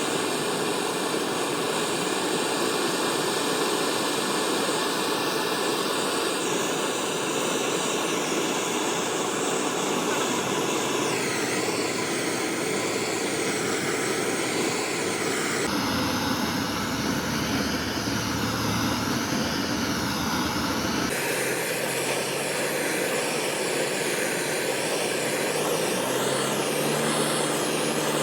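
Steady, dense workshop machinery noise with no clear rhythm or strikes. Its tone changes abruptly a few times, about a quarter, a third, halfway and three quarters of the way through.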